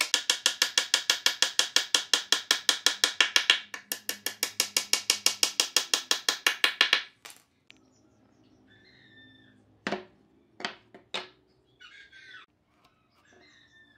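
Claw hammer tapping a wooden dowel into a bed-frame joint in quick, light, even blows, about five a second. The blows pause once briefly and stop about halfway through. A few sharp wooden knocks follow as boards are set down on a workbench.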